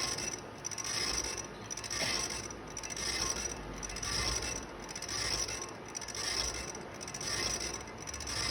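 Steady rasping strokes of hand abrasion on a rusty water pump part, about one stroke a second, as rust is worked off.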